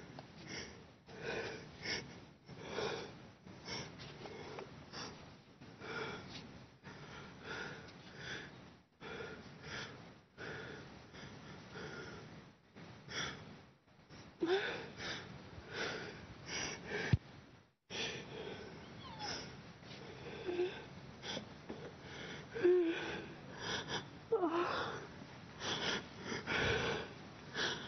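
A woman breathing hard close to a handheld microphone in a string of ragged gasps, roughly one a second, with a few short whimpers in the second half.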